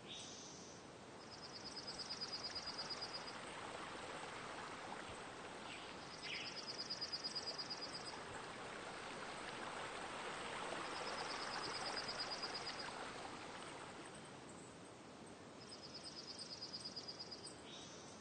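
Outdoor nature ambience: a soft, steady rushing noise that swells in the middle, with a high, rapidly pulsed trill repeating four times, each about two seconds long, and a few short chirps.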